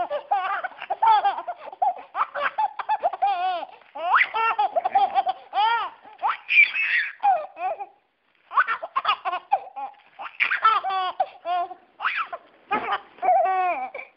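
Six-month-old baby laughing hard in rapid, high-pitched repeated bursts, with a short pause about eight seconds in.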